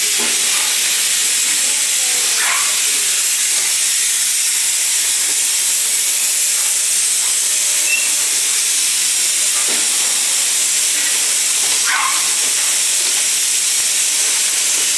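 Plastic cup thermoforming machine running, with a loud steady hiss.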